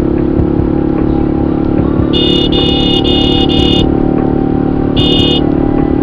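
Motorcycle engine running steadily at cruising speed, with wind and road noise. A high-pitched vehicle horn beeps four times in quick succession about two seconds in, and once more about five seconds in.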